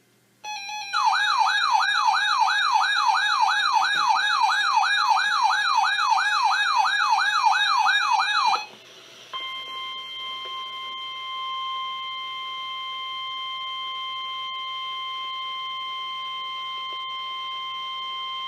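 An electronic siren-like alert warbling up and down about three times a second for roughly eight seconds, then, after a short break, the steady 1050 Hz NOAA Weather Radio warning alarm tone, a single held beep-like tone, signalling that a new warning is about to be read.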